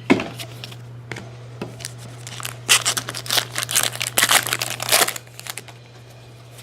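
Trading card pack wrapper crinkling and tearing as it is opened, with a dense run of crinkling in the middle, over a steady low hum.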